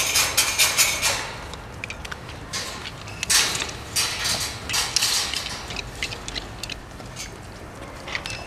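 Piglets rooting and snuffling in muddy straw bedding: a run of short, irregular scuffles and snuffles, busiest in the first second and again around three to five seconds in, thinning out towards the end.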